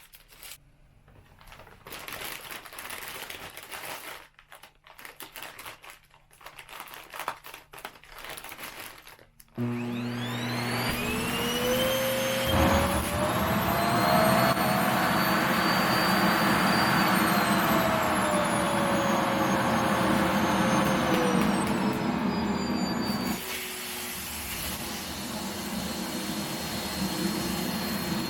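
Plastic compression bag crinkling as it is handled, then a vacuum cleaner switches on about ten seconds in, its motor whine climbing as it spins up and then running steadily as it sucks the air out of the bag. A few seconds before the end the motor pitch falls and it runs quieter, which the owner takes for the vacuum switching itself down from strong to weak.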